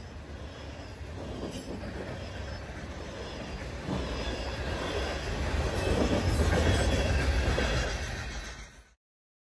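Freight cars of a passing train rolling by on the rails, a steady rumble of wheels on track that grows louder in the second half, then cuts off suddenly just before the end.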